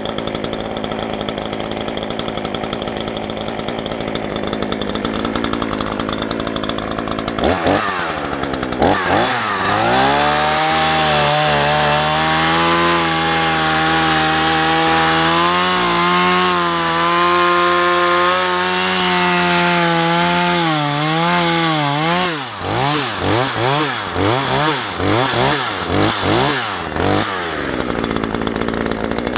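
Two-stroke chainsaw idling, then revved up about eight seconds in and held at high revs with a wavering pitch. Near the end it is blipped up and down several times in quick succession before dropping back to a steady idle.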